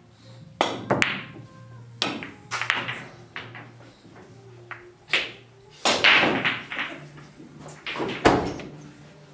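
Pool cue striking the cue ball and pool balls clicking together, followed by a scattered series of sharp knocks and thuds over several seconds, the loudest near the end.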